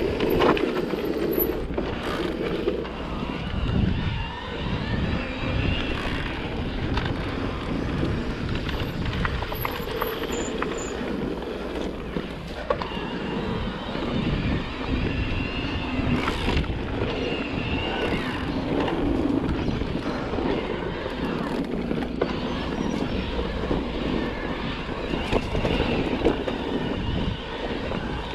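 Electric mountain bike ridden along a dirt trail: tyre noise with frequent rattling knocks from the bike over bumps, and wind rumbling on the microphone.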